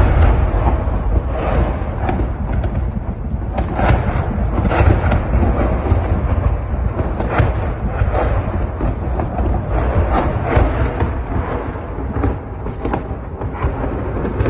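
Explosions from shelling: a loud, continuous rolling rumble with many sharper booms and cracks breaking through it, often several a second.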